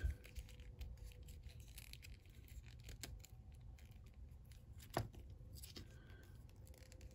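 Faint handling of a plastic action figure: fingers rubbing and fiddling as a small plastic hand and staff are pushed into the figure's grip, with a single sharper plastic click about five seconds in.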